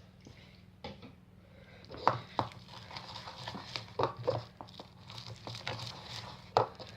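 Homemade slime being stirred, sticky and just starting to thicken after contact lens solution and baking soda went in: irregular soft squishes and small clicks, busier from about two seconds in.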